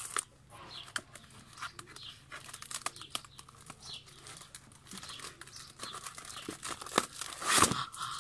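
Cardboard parcel being torn open by hand: ripping and crinkling of cardboard and packing, with many small scrapes and clicks and a louder burst near the end.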